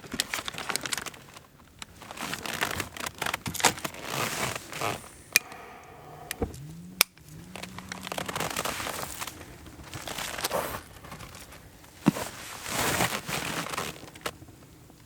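Crinkling and crackling of a wrapped artificial fire log being handled to light a stove, in irregular bursts with a few sharp clicks.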